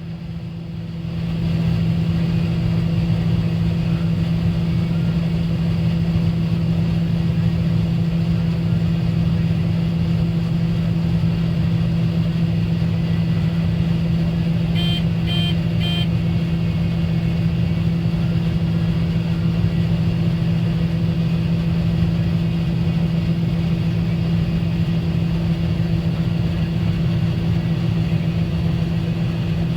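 Combine harvester running steadily while cutting soybeans, a constant low engine and machine drone. About halfway through, a few short, high electronic beeps sound briefly.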